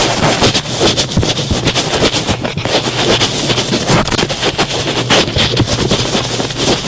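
Thick cotton swab rubbing and pressing right against the microphone, a loud, dense scratchy rustle full of small crackles.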